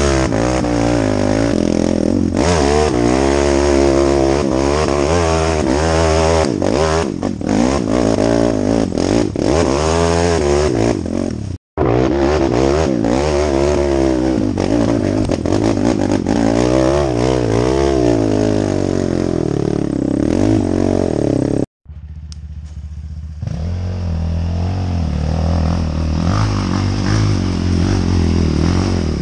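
ATV engine revving up and down again and again as it climbs rough ground, with clattering from the machine. The sound cuts out completely for an instant twice. In the last several seconds the engine runs steadier and lower.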